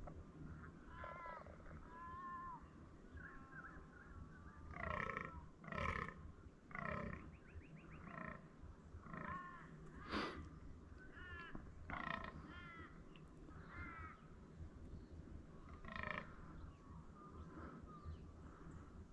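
A crow giving a run of harsh caws, spaced roughly a second apart, with the loudest about a third and half of the way through. Smaller birds chirp between the caws.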